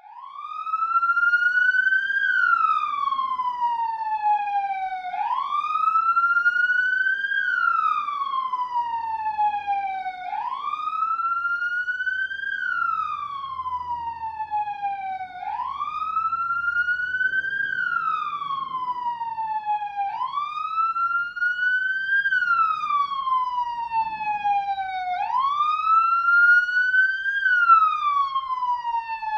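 Police siren sounding in wail mode: a tone that sweeps up over about two seconds and falls back over about three, repeating about every five seconds.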